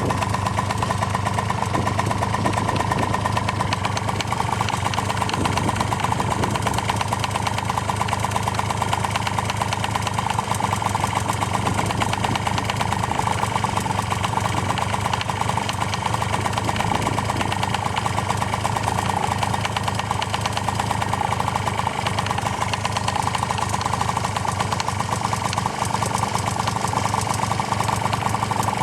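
Honda Tact AF24 moped's small two-stroke engine idling steadily while cold, with a knocking in the engine that the owner cannot diagnose. The knock appeared at the same time as heavy exhaust smoke.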